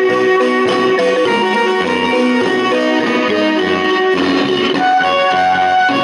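Marimba ensemble playing a lively tune, with a melody of held notes over a bass line that comes in short, regular strokes.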